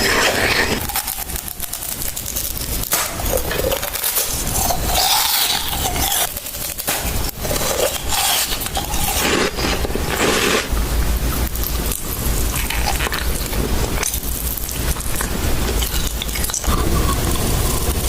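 Close-miked eating of crisp food: many small crackles, crunches and scrapes of chewing and biting. A low rumble runs underneath through the second half.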